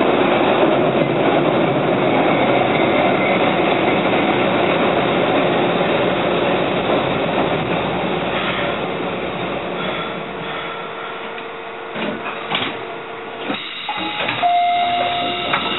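Keihan Ishiyama Sakamoto Line electric train running and braking to a stop: the running noise fades over about twelve seconds, with a steady whine in the last seconds of braking. As it comes to rest there are a few clunks and a short high tone.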